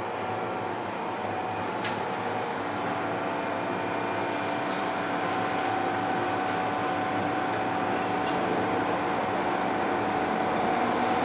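Carriage noise inside an MTR M-Train electric multiple unit: a steady hum with a few steady whining tones, growing gradually louder, with two small clicks about two and eight seconds in.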